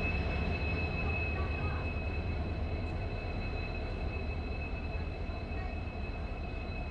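WDP4D diesel-electric locomotive running along the platform at close range, a steady low engine rumble with a thin high whine through it, slowly fading as it draws away.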